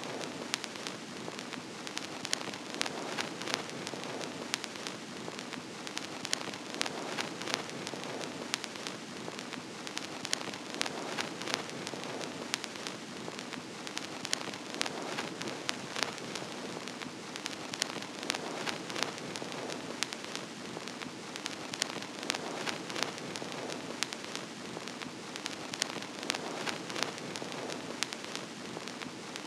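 Vinyl record surface noise: a steady hiss with frequent irregular crackles and sharp pops, as from a worn, dusty record spinning on a turntable.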